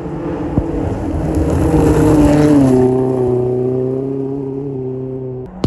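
Rally car at full throttle on a gravel stage, growing louder as it approaches and then dropping in pitch as it passes at speed and pulls away. The sound cuts off abruptly just before the end.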